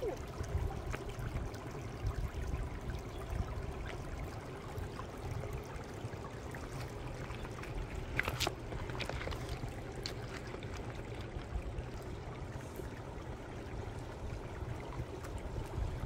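Shallow creek water trickling steadily over rocks, under a constant low rumble. A few sharp clicks about eight seconds in, stones knocking underfoot as a child steps across the creek.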